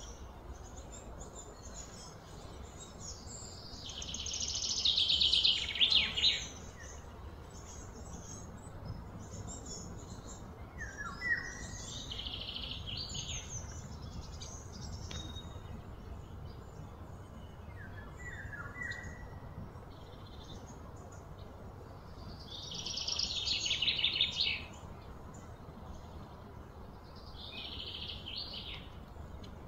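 Birds calling outdoors: four loud, fast trills of one to three seconds each, with short down-slurred chirps between them, over a steady low hum.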